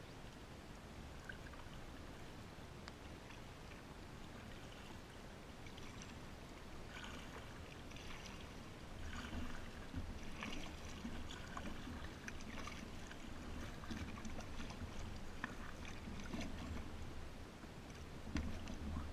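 Kayak paddling on a river: paddle blades dipping into the water with light splashes, drips and gurgles, quiet at first and busier from about seven seconds in, over a low rumble.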